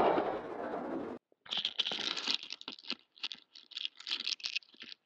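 The echo of a shotgun shot fades out over the first second. After a short gap, irregular crunching and rustling follows: footsteps through deep snow and snowy brush.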